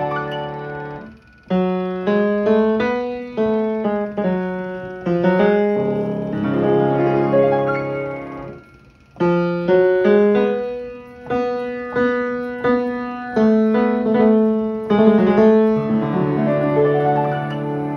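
Knabe grand piano with an Ampico B reproducing mechanism playing a music roll: a piece of piano music of chords and melody, pausing briefly about a second and a half in and again near the middle.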